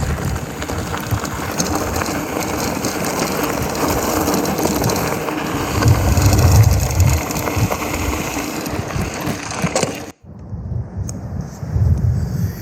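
Bicycle rolling over rough ground with a steady rattle and crunch from the tyres and drivetrain, and wind buffeting the microphone. The sound cuts off abruptly about ten seconds in and resumes with a patchier noise.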